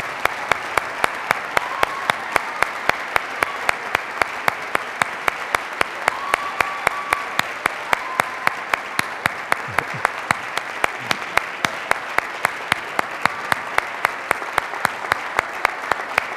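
Audience applauding, with sharp claps in a steady rhythm of about three to four a second over the general clapping and a few faint shouts.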